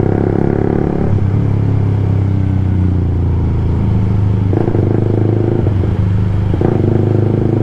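Motorcycle engine and exhaust running steadily, with a few light throttle blips about one, four and a half, and six and a half seconds in. The exhaust note is sharp.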